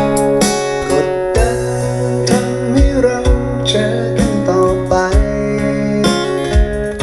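Instrumental passage of a Thai pop ballad, with guitar over held bass notes and a steady drum beat, played back through a DIY Bluetooth speaker as a sound test.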